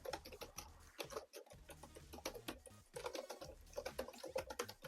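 ASMR clicking sounds: a rapid, irregular run of sharp clicks, several a second.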